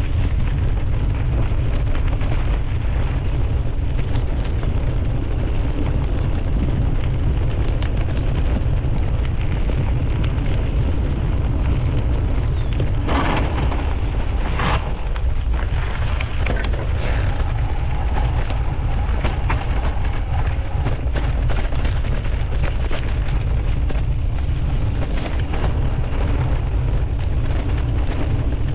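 Mountain bike ridden along a trail, heard on a GoPro's microphone: steady wind buffeting the microphone under a constant clatter of tyres and the bike rattling over rough ground, with two louder rattling impacts about 13 and 15 seconds in.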